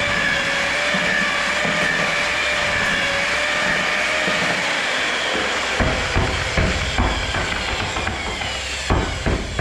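Handheld electric paddle mixer churning sand-cement mortar in a tub, its motor giving a steady whine. From about six seconds in the whine slides down in pitch as it slows, with several dull knocks, about three around six to seven seconds and two more near the end.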